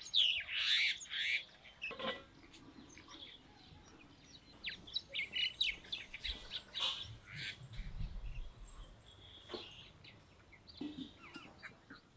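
Small birds chirping and twittering in many quick short calls, busiest in the first second or so and again midway, with a few light knocks in between.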